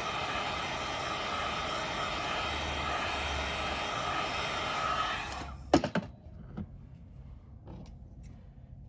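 Hot-air blower running steadily to soften the phone's display adhesive, switched off suddenly about five seconds in. A few sharp clicks and lighter taps of small tools on the phone follow.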